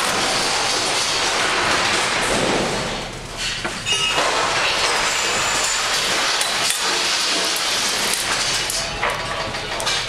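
Loud, steady rush of storm wind and heavy sea heard inside a ship's lounge, with rattling and clattering of fittings as the ship rolls. The rush dips briefly about three seconds in.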